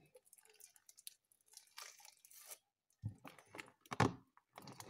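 A large batch of clear-glue slime, still slightly sticky, being squeezed and pulled by hand in a plastic tub. It gives wet, sticky squelches and tearing crackles, faint at first and louder and sharper from about three seconds in.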